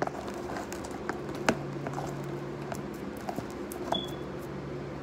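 Scattered light clicks and taps from a pencil and a clear plastic bowl of slime being handled, over a steady low room hum; one tap about a second and a half in is the loudest.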